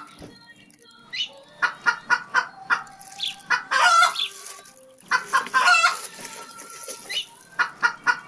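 Chickens clucking: a string of short calls, with a brief lull about halfway through.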